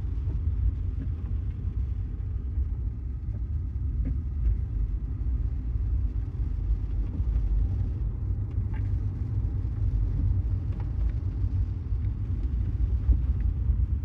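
Steady low road and tyre rumble inside the cabin of a Tesla electric car driving on wet roads, with a few faint ticks scattered through.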